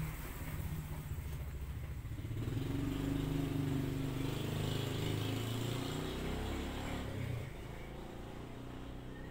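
Toyota Kijang engine being cranked over on its starter motor for a compression test, with a compression gauge fitted in cylinder 1, as a fast, even pulsing. The cranking drops away about seven seconds in.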